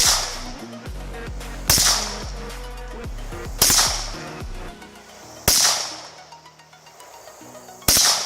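Glock pistol fired five times, roughly two seconds apart, each shot followed by a fading echo.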